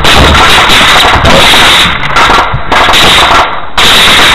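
Automatic gunfire in rapid bursts with short breaks about every second, loud enough to overload the recording into a harsh, clipped crackle.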